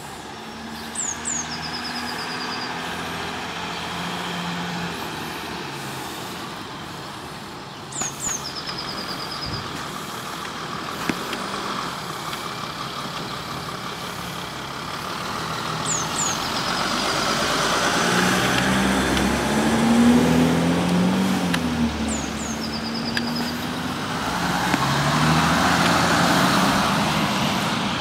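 Two-tone emergency sirens of a Dutch ambulance and trauma-team car, with traffic and engine noise. They grow louder as the vehicles approach and peak twice as they pass, about two-thirds of the way in and again near the end.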